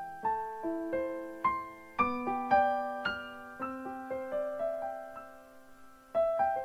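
Background music: solo piano, notes struck one after another and left to ring out.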